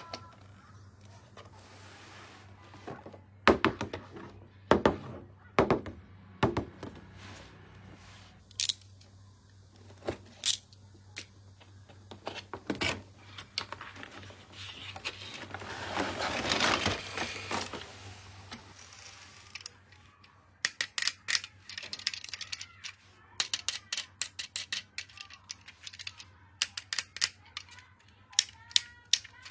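Plastic toys and their packaging being handled: sharp clicks and knocks, a rustle lasting about three seconds midway, then a run of rapid clicking.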